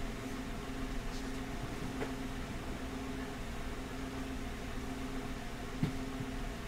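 Steady low electrical or fan-like hum of room tone with a faint drone, broken by two soft small clicks, one about two seconds in and a slightly louder one near the end.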